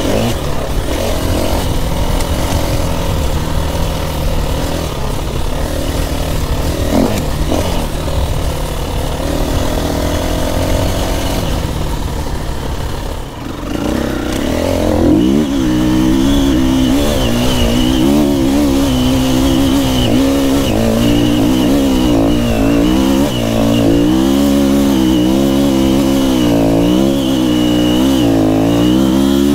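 KTM dirt bike engine running under load. Nearly halfway in the sound changes, and from then on the revs rise and fall every second or so as the throttle is worked on loose shale.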